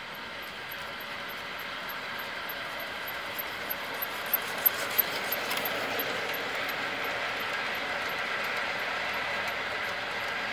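G-gauge model coal train, led by a 2-8-2 steam locomotive, running on garden-railway track. The sound of wheels on rails grows louder as it approaches, with a few sharp clicks about four to five seconds in as the locomotive passes close. Then it turns into the steady running of the hopper cars going by.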